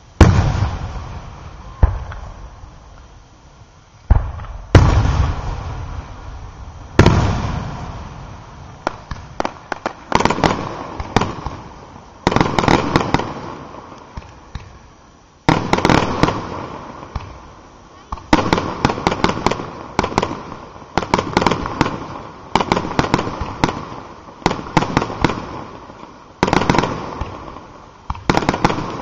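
Aerial firework shells bursting: a few heavy booms, each dying away, in the first seven seconds, then a rapid run of shells going off about once a second, each with a quick cluster of pops and crackles.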